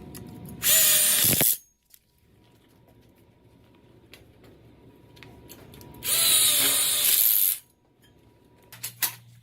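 Cordless power drill driving screws into steel frame tubes: two bursts of about a second each, one near the start and one about six seconds in, with a whine that rises as each run goes.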